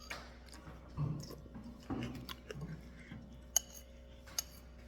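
Eating sounds: faint chewing of cereal and a spoon clicking against the bowl, with two sharp clicks near the end.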